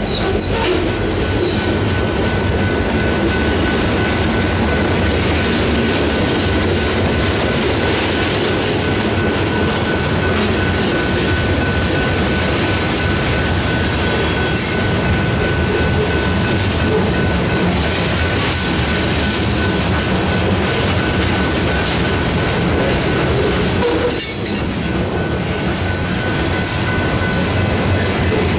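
Covered hoppers and tank cars of a freight train rolling past at close range: a steady rumble of steel wheels on the rails. A thin, steady high whine rides over it from a couple of seconds in.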